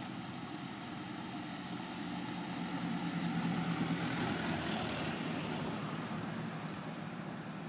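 A distant engine droning steadily, growing louder to a peak about four seconds in and then fading, as a motor vehicle or aircraft passes.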